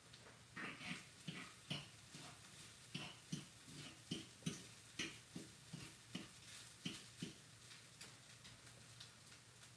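A run of faint, light knocks, about two to three a second, that stop about seven and a half seconds in, over a faint steady hum.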